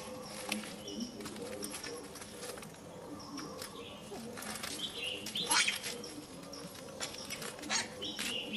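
Short high-pitched chirping calls recurring every second or so, with scattered faint clicks and rustles; the loudest call comes about five and a half seconds in.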